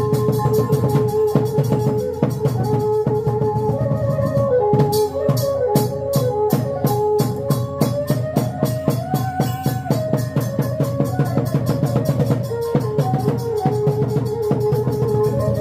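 Khmer chhay-yam music: fast, dense drumming under a wavering, sliding melody line.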